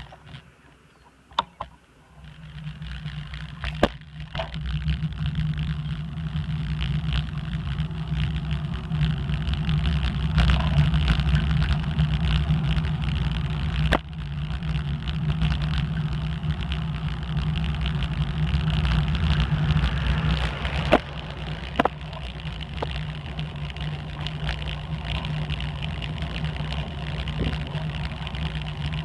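Steady low rumble of a bicycle riding along a road, rising as it moves off about two seconds in. A few sharp knocks are heard as it goes over bumps.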